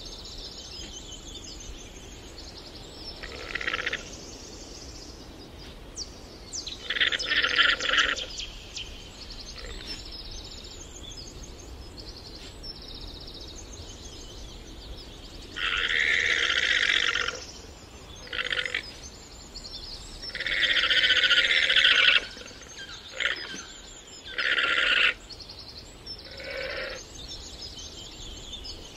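Llamas calling: a series of about eight loud, harsh calls, some short and some lasting a second or two, coming at irregular intervals with quieter stretches between.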